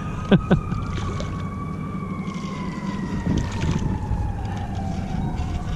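A distant siren wailing, its pitch slowly falling and then starting to rise again near the end, over a low steady drone. A hooked fish splashes at the water's surface about three and a half seconds in, and two short sharp sweeping sounds come just after the start.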